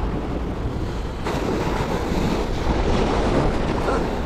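Steady rush of wind over the microphone with water noise beneath, growing a little louder about a second in.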